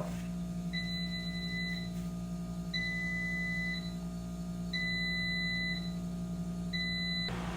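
Electronic appliance alert beeping: four steady, high, single-pitched beeps about a second long, one every two seconds, the last cut short, over a steady low hum.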